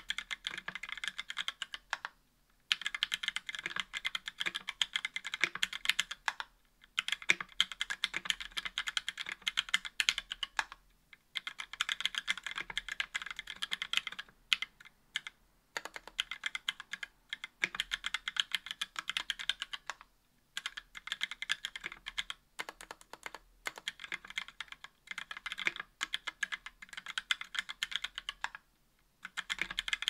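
Continuous typing on a KBDfans Tofu60 aluminum-case 60% keyboard with stock Gateron Red linear switches, GMK keycaps and lubed, clipped screw-in stabilizers: runs of rapid keystrokes broken by short pauses every few seconds.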